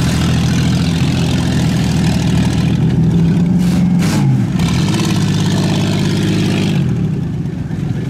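Pickup truck engine revving hard under load during a stuck-truck recovery in deep mud. Its pitch sags and climbs again about halfway through.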